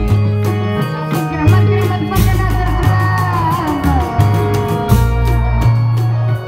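Loud amplified reog music from the troupe's ensemble: deep bass notes pulse about once a second under a melody that slides and falls in pitch near the middle.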